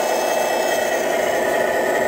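Wedico Cat 966 RC scale wheel loader running with a steady mechanical hum as it works its bucket over a truck bed.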